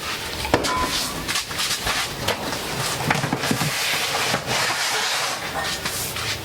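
Stored items being shifted and stacked: irregular knocks and clatters over a steady rattling noise.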